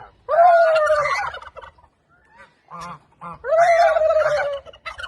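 Young pigs squealing loudly at feeding time: two long squeals, one near the start and one about three seconds in.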